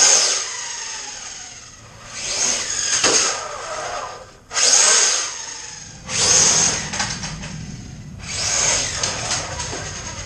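RC car's brushless motor on a 4S battery whining through about five full-throttle bursts, each a second or so long and tailing off between them.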